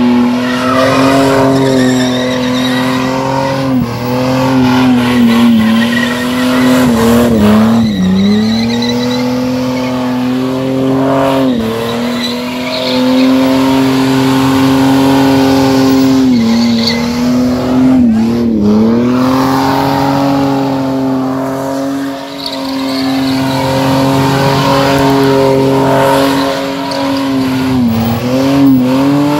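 Car engine held at high revs through a burnout or skid, the revs dipping briefly and climbing straight back about six times, with tyres squealing.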